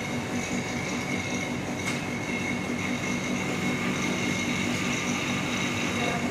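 Refrigeration vacuum pump running steadily, evacuating the refrigerant lines of a 2 PK Gree split air conditioner, with a steady whine over a low hum.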